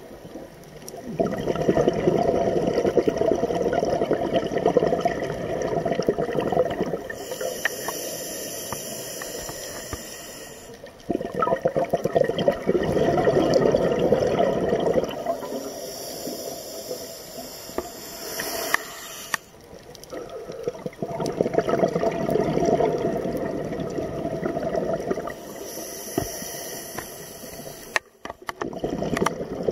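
Scuba diver breathing through a regulator underwater: three slow breaths, each a high hiss on the inhale and a longer, louder burst of bubbling on the exhale.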